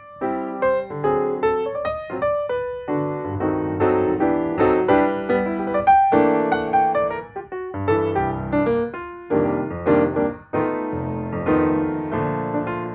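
Piano background music, a steady run of keyboard notes and chords.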